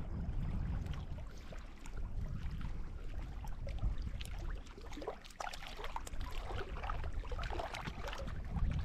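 Wind buffeting the microphone, with small waves lapping at a rocky shore. A run of faint clicks and short rising sounds comes in about halfway through.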